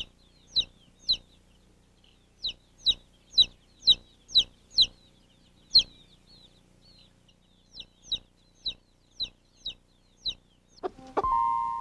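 Baby chicks peeping: short, high, falling peeps in loose runs of about two a second. A children's music cue with held tones comes in near the end.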